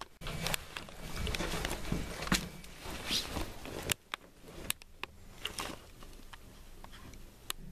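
Footsteps crunching over rubble and grit on a concrete floor, with scattered sharp clicks; the steps grow quieter and sparser about four seconds in.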